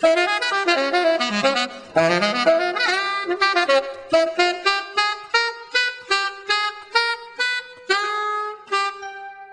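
Jazz horn music led by saxophone. A busy run of overlapping notes gives way to a string of short, separate notes about two a second, then a few held notes near the end.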